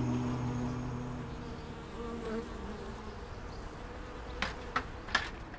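Honeybees buzzing at a hive, a steady hum that comes in as background music fades out. Three sharp light knocks sound close together near the end.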